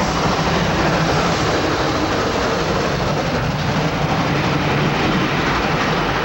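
A train passing, a loud and steady noise that holds throughout.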